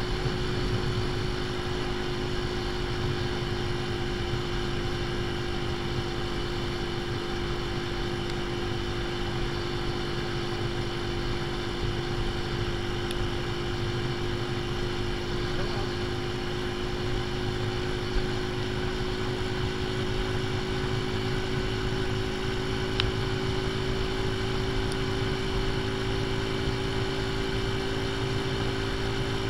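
AJS Tempest Scrambler's single-cylinder engine running at a steady cruise over a low rumble of wind and road noise, its pitch creeping slightly higher over the half-minute.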